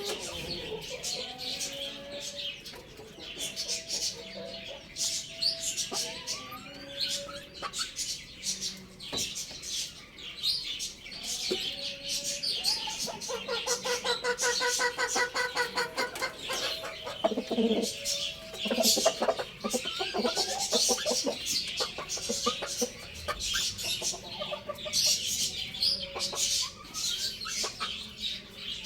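Many small birds chirping constantly, with fowl clucking and a rooster crowing once, a long call about halfway through.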